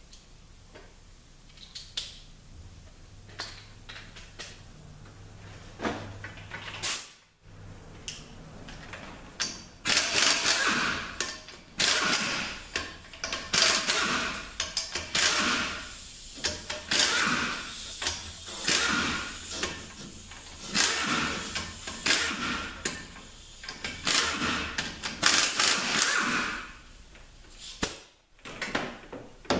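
Ratchet wrench working the bell housing bolts off a Nissan RE4R01A automatic transmission. There are a few light clicks at first, then from about ten seconds in, repeated short ratcheting bursts about once a second.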